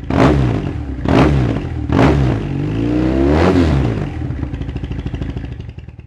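Motorcycle engine revved in three quick blips about a second apart, then a longer rev that rises and falls back, dropping to a lower, unsteady note that fades out near the end.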